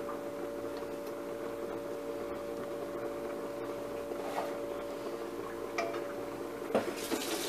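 Steady hum of a kitchen appliance motor, with a few faint light knocks of a wooden spoon against the pan and ramekin.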